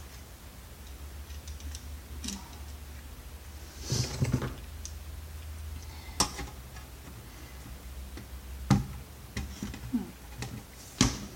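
Snips and hand tools working at a plastic clip inside a monitor's metal housing: scattered sharp clicks and knocks, a cluster about four seconds in and the loudest snaps about nine seconds in and just before the end. A steady low hum runs underneath.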